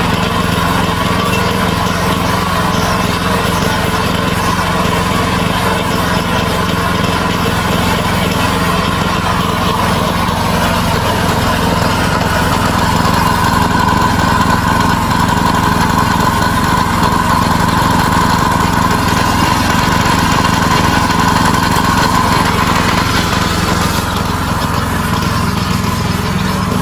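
Small gasoline engine running steadily, driving a belt-driven piston pressure-washer pump.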